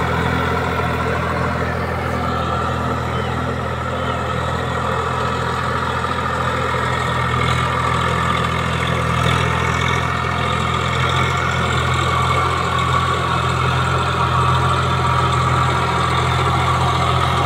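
Swaraj 744 FE tractor's three-cylinder diesel engine running steadily as it pulls a rotary tiller through a flooded paddy field, puddling the mud.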